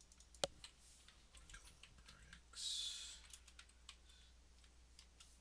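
Computer keyboard typing: faint, irregular keystrokes and clicks, with one sharp click about half a second in. A short hiss comes about halfway through.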